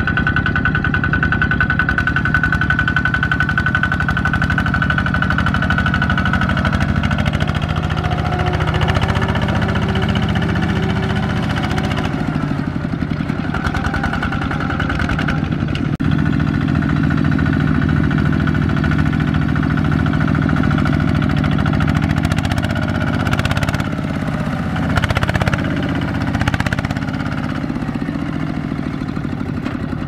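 Single-cylinder diesel engines of two-wheel tractors (power tillers) chugging steadily as they drive across a rice field. A few sharp knocks come near the end.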